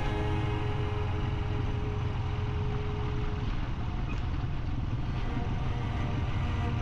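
Steady low rumble of a vehicle on the move, under background music; a held note in the music fades out about halfway through.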